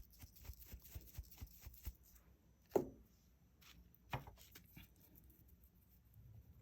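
Quick, faint brushing strokes, about five a second, as filing dust is brushed off a freshly filed nail, followed by two small clicks.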